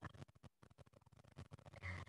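Near silence: faint room tone in a pause between spoken sentences.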